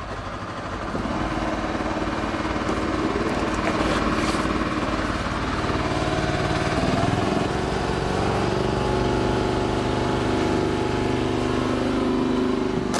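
A small engine on drain-clearing equipment running steadily, picking up and running harder about a second in.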